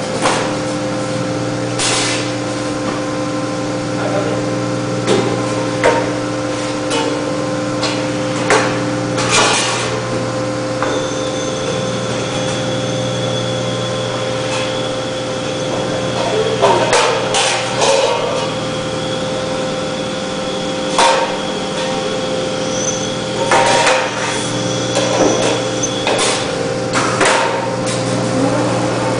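Sheet-metal V-cutting (V-grooving) machine running with a steady hum, joined by a high thin whine from about eleven seconds in until about twenty-six seconds. Irregular sharp knocks and clanks come every few seconds over the hum.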